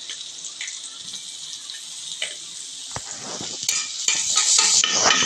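Garlic sizzling as it sautés in melted margarine in a pan, with a utensil clicking and scraping against the pan as it is stirred. The sizzle grows louder about three seconds in.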